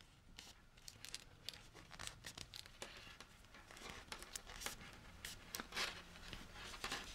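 Faint clicking and rustling of circular knitting needles, their cable and the yarn being handled as a knitted sock in progress is turned around on the needles. The clicks come thick and irregular and grow a little louder towards the end.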